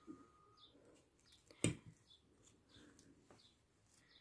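Quiet handling of a glass baklava tray: one sharp clink of a fork on the glass less than two seconds in, with a few soft knocks. Faint short bird chirps repeat about twice a second throughout.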